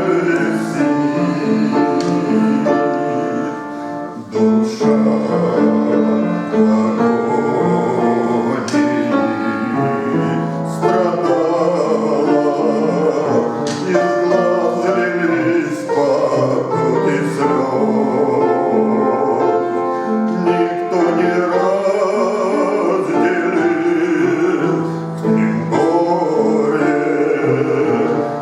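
A male voice singing a Christian hymn with instrumental accompaniment.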